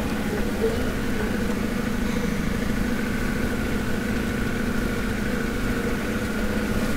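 Toyota Land Cruiser 60 Series engine running at a steady speed while it drives along a sandy dirt track, heard from inside the cab with a low rumble beneath it.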